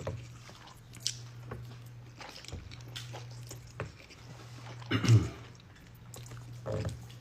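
Close-up chewing and wet mouth clicks of someone eating, with two short vocal murmurs about five seconds in and near the end, over a steady low hum.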